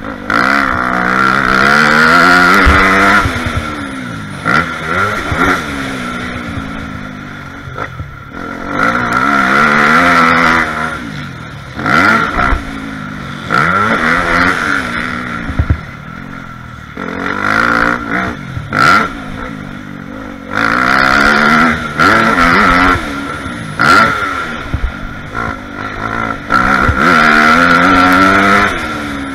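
Dirt bike engine, heard from the rider's helmet, revving up hard through the gears and dropping off again as the throttle is rolled off and on, about five full-throttle swells. Sharp knocks are scattered through.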